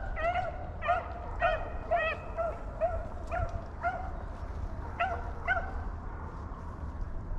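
A rabbit-hunting hound barking in a quick, regular string of short high yelps, about two a second, as it runs a rabbit's track; the barking stops a little before the end.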